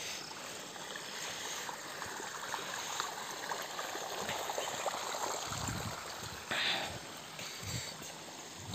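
Running, trickling water, steady throughout, with a few low bumps about two-thirds of the way through.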